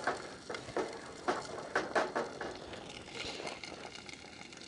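Wooden spatula stirring and scraping scrambled eggs in a small pot, with a string of light knocks against the pot. About three seconds in a sizzling hiss of the eggs frying comes up.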